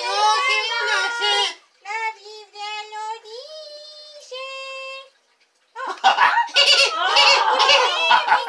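High-pitched, child-like puppet voices singing a children's hymn, starting loud and then going softer with long held notes. After a short break about five seconds in, loud laughter and excited chatter follow.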